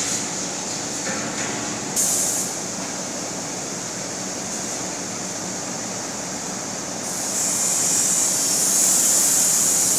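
Nut chopping machine running steadily, its motor, rolling knives and vibrating sieves making a constant mechanical hum and hiss. About seven seconds in a louder, sustained high hiss sets in as peanuts are fed into the hopper from a plastic bag.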